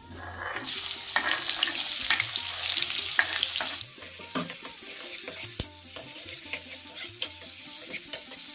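Chopped onion dropped into hot oil in a metal kadai, sizzling hard from about half a second in and easing somewhat after a few seconds. Throughout, a steel ladle scrapes and clicks against the pan as the onion is stirred.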